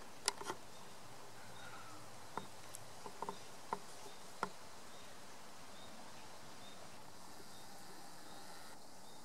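Faint insect chirping: a short high chirp repeats about every three-quarters of a second over a steady background hum. Several sharp clicks come in the first four and a half seconds.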